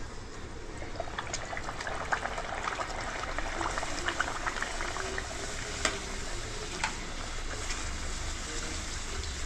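A puri deep-frying in hot oil in a pan, sizzling and crackling as it puffs up while a metal slotted spoon works oil over it. The sizzle builds about a second in, with a few sharp clicks from the spoon.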